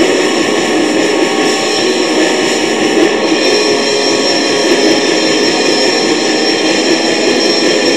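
Lo-fi black metal recording: a dense, steady wall of distorted guitar with little bass.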